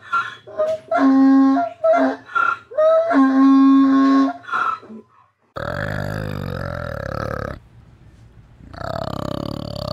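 A donkey braying: a run of alternating higher and lower hee-haw notes that ends about five seconds in. Then a flanged male orangutan gives low, drawn-out calls in two stretches with a pause of about a second between them.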